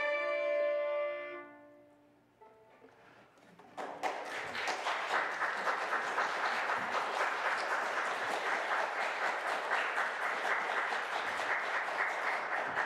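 A string ensemble's final chord is held and fades out about two seconds in. After a short pause, audience applause breaks out about four seconds in and goes on steadily.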